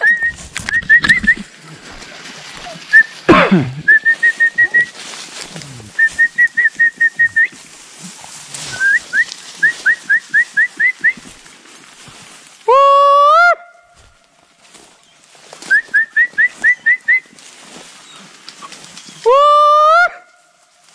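Someone whistling to call hunting hounds: repeated runs of quick, high chirping whistles. Twice, about halfway through and near the end, a loud call about a second long that rises in pitch as it starts, then holds.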